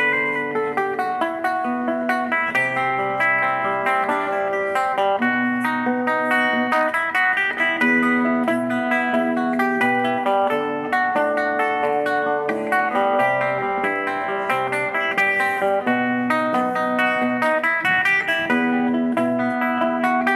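Hollow-body electric guitar played through an amplifier: an instrumental break of quick picked single notes over low held notes.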